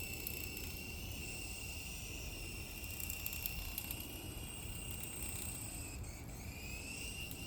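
Small electric motor of a toy remote-control helicopter in flight, a steady high-pitched whine that drops about six seconds in and rises again near the end as the throttle changes.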